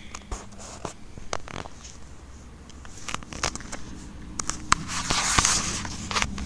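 Handling noise from a phone being moved around with its microphone rubbed: scattered clicks and rustling, rising to a louder rush of rubbing about five seconds in.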